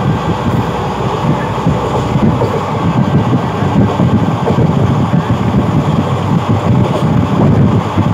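Doon Express (13009) running through a station at speed, heard from on board: a loud, steady rumble of wheels on track, with wind buffeting the microphone.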